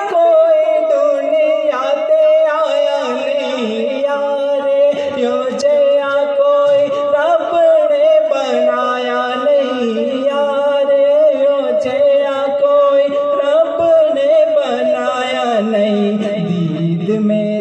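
A man singing a devotional song into a microphone over a PA system, in long wavering held notes with melodic turns.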